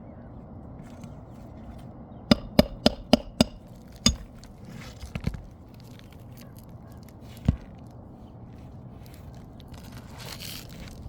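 Hammer striking metal in a quick run of five ringing blows, about three a second, then single blows a second, three and five seconds later. The hammer is driving a roof snake to cut the roofing nails under the shingles. A short scraping sound comes near the end.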